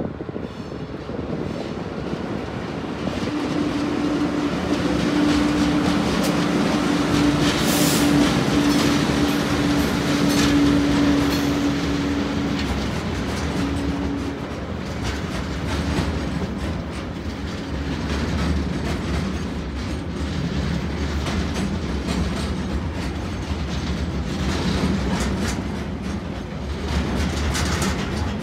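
TasRail container freight train hauled by TR-class diesel locomotives passing overhead on a concrete bridge, growing louder over the first several seconds. A steady tone runs through the first dozen seconds, then the container wagons' wheels rumble and clack along the rails.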